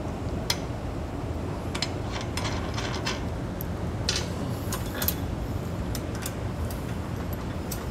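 Scattered light metallic clicks and taps as bolts and washers are worked through a steel grille-guard mounting bracket by hand, over a steady low background hum.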